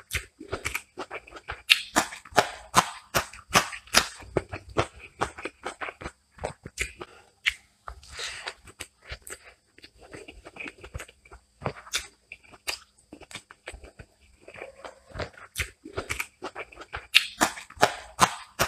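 Close-up eating sounds of rice and chicken eaten by hand: chewing and mouth smacking as an irregular run of sharp clicks, thickest a couple of seconds in and again near the end.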